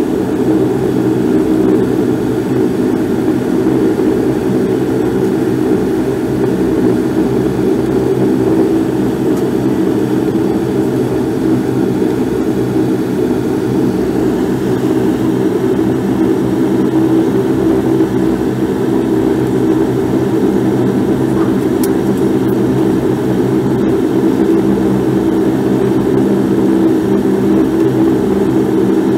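Bombardier Q400 Dash 8's Pratt & Whitney Canada PW150A turboprop engines and propellers running steadily at low power while the airliner is on the ground before takeoff, heard from inside the cabin: an even drone of several low tones.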